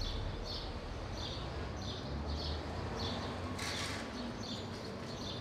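Short high chirps repeating at a steady pace, about every two-thirds of a second, over a low background rumble, with a brief rustling noise burst a little past halfway.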